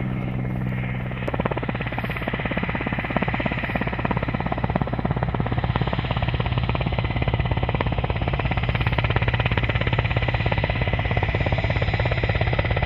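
Mil Mi-8 helicopter flying close by: a steady low turbine and rotor drone with a fast, even beat of the rotor blades, which sets in about a second in.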